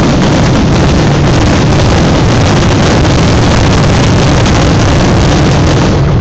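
Rapid fireworks barrage, the bursts following so closely that they merge into one continuous, very loud rumble with no separate bangs.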